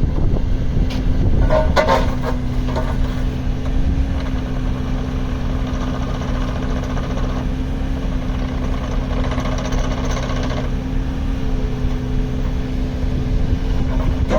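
Yanmar VIO25-4 mini excavator's three-cylinder diesel engine running steadily, with a few metallic knocks in the first few seconds and a faint higher tone coming in near the end.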